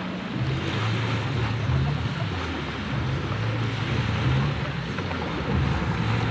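Stand-up jet ski engine running near idle, a low hum that wavers slightly in pitch, over the wash of surf and wind noise on the microphone.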